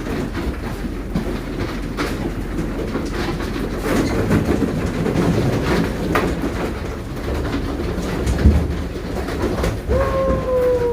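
A pen of pigs grunting and jostling amid a steady clatter. About ten seconds in, one pig gives a single drawn-out squeal that falls slightly in pitch.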